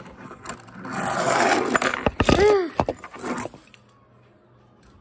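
A toy double-decker bus pushed across a hard tabletop, its wheels rolling and scraping with light rattles. About two and a half seconds in, a child makes a short vocal sound effect that rises then falls in pitch.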